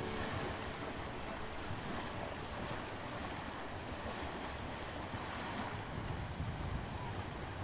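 Steady wash of sea waves and wind, an even rushing noise with no music or voice.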